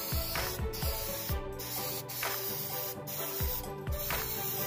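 Aerosol can of black semi-metallic spray paint hissing in a run of short bursts with brief pauses between them. Background music with a steady beat plays underneath.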